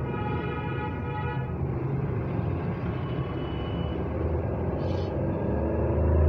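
Steady low rumble of background traffic, with a vehicle horn held for about the first second and a half.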